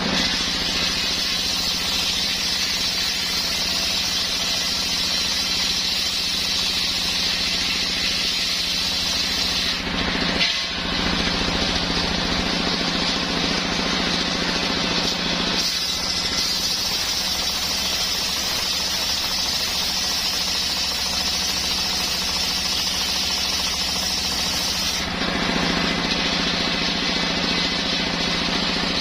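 Engine-driven homemade circular saw running and ripping coconut-palm wood, a loud steady machine noise with a bright rasp from the blade. The sound of the cut eases and picks up again a few times as the log is fed through.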